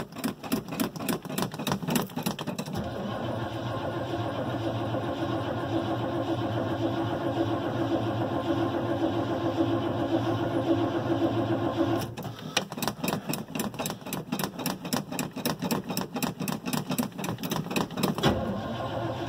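1978 GMC Suburban's engine being cold-started at 12 degrees without the choke: the starter cranks it with rhythmic pulses, and it catches about three seconds in and runs steadily for about nine seconds. It then dies, is cranked again for about six seconds, and catches again near the end.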